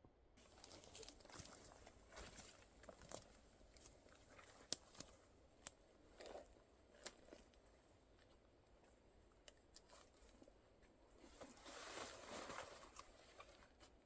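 Faint crunching and rustling of footsteps on dry forest litter, with scattered sharp crackles. The sound swells for a couple of seconds near the end.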